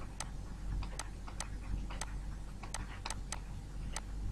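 Faint, light clicks at irregular spacing, about two a second, from a stylus tapping on a digital writing tablet as words are handwritten, over a low steady hum.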